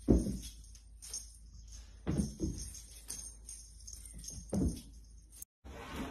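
Small jingle bells shaking in repeated bursts while kittens pounce at a wand toy, with soft thuds of paws landing on a rug about four times.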